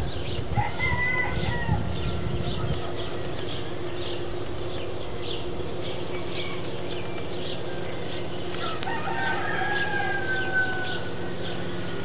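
Roosters crowing twice: one crow about half a second in and a longer one near the end. Between them, short high chirps of small birds repeat about twice a second.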